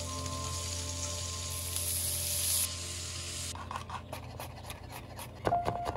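Sliced red onion sizzling in hot oil in a pan, a steady hiss. Past the halfway point it gives way to a chef's knife slicing garlic cloves against a wooden cutting board, a run of crisp cuts, the loudest near the end.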